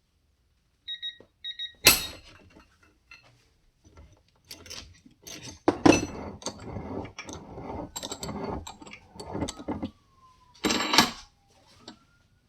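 Two short electronic beeps, then a run of metallic clicks, knocks and rattles as a quarter-inch ratchet and its socket are handled and worked loose on a digital torque tester. The ratchet's detent has locked the socket on. The loudest knocks come about two seconds in, near the middle and near the end.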